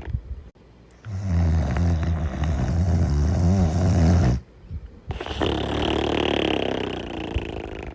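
Cartoon dog's snoring sound effect. About a second in comes a loud, low, rumbling snore on the in-breath lasting some three seconds. After a short break, a softer, breathier out-breath with a faint whistle runs on to the end.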